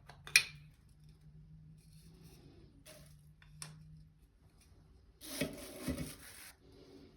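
Hard objects being handled: a sharp click just after the start, two small clicks around three seconds in, then a little over a second of rubbing and knocking near the end. A low steady hum runs underneath and stops about four seconds in.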